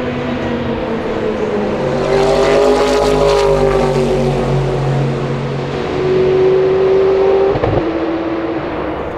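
Sauber Mercedes C11's 5.0-litre twin-turbo V8 racing engine passing close by. Its note swells and bends downward as it goes past, about three seconds in. It then pulls away under acceleration at a steady pitch, which drops suddenly near the end.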